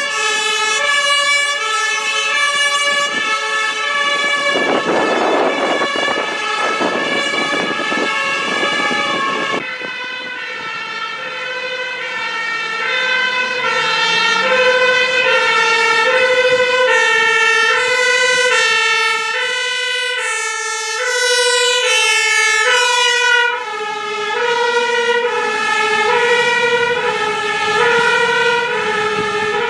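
Fire engine's two-tone siren, stepping back and forth between a high and a low note about once a second. A loud rush of vehicle noise passes under it between about four and nine seconds in.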